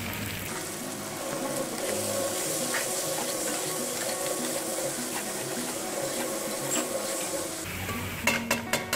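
Okra, onions and chicken sizzling in oil in a large metal pot while a long metal spoon stirs them, scraping against the pot. Near the end come several sharp clinks of the spoon against the pot.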